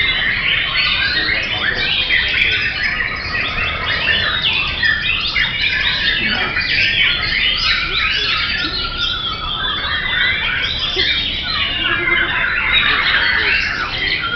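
Several caged white-rumped shamas (murai batu) singing at once: a dense, overlapping, unbroken chorus of quick whistles, chirps and trills.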